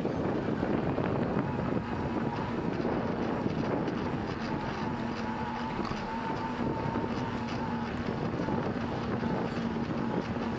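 Wind rushing over a handlebar-mounted camera's microphone and the bicycle's tyres running on the road while riding, with a steady low hum and a fainter higher whine joining about two seconds in.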